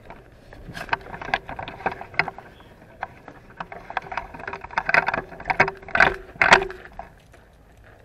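Handling noise from a phone camera being moved around by hand: a run of irregular clicks, knocks and rustles, thickest and loudest a few seconds in.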